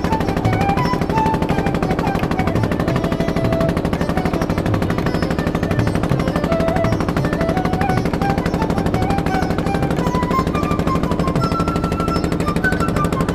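A boat's diesel engine running with a rapid, even chugging, with a tune of short notes playing over it.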